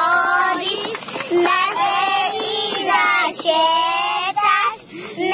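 Young girls singing a Macedonian song together in high children's voices, in short sung phrases, close to a handheld microphone.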